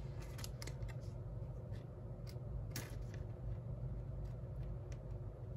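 A baseball card being slipped into a soft plastic penny sleeve and then into a rigid plastic toploader: soft plastic rustling with scattered light clicks.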